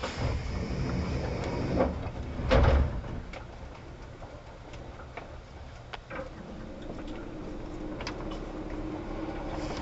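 Kintetsu 1810-series train car standing at a station: a hiss and then a loud thud in the first three seconds, typical of its doors sliding open, followed by the car's low steady equipment hum.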